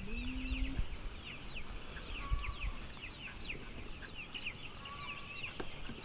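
A flock of chickens calling: a steady chorus of short, high, downward-sliding peeps several times a second, with a lower drawn-out call that ends just under a second in and a few clucks later. Low rumbles sit under it near the start and about two seconds in.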